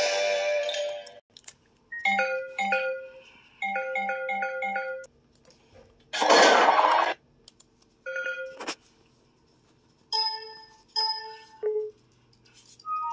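Short electronic chimes and beeps in separate groups, including a run of five quick notes, in the style of Windows XP system sounds, played back from a computer video and picked up off its speaker. A loud hiss-like burst comes about six seconds in.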